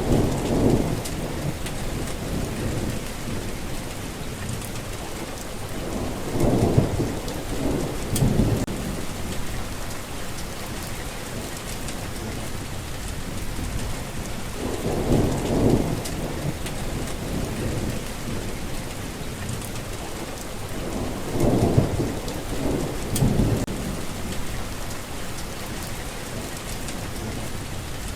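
Steady rain with low rumbles of thunder rolling in four times, near the start, at about seven, fifteen and twenty-two seconds.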